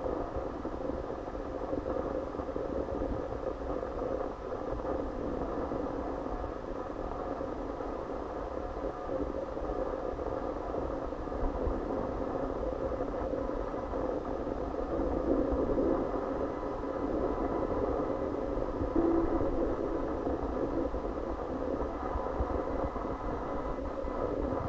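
Steady, muffled indoor room noise with a low rumble, swelling slightly a little past the middle.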